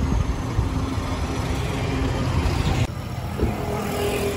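Road traffic: a steady low rumble of vehicle engines, broken by an abrupt change in the sound about three seconds in.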